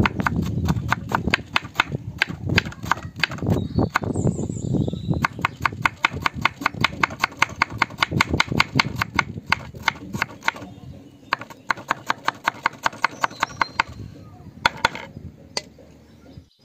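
Knife chopping rapidly and evenly on a cutting board, several strokes a second, thinning to a few separate taps near the end.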